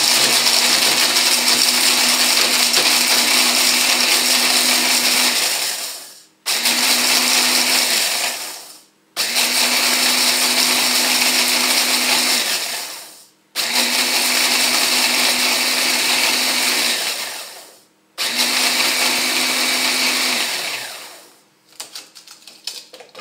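Hand blender with a chopper bowl grinding dry, toasted sandwich-bread slices into breadcrumbs. It runs in five pulses, the first about six seconds long, and the motor winds down each time the button is let go. A few clicks of handling follow near the end.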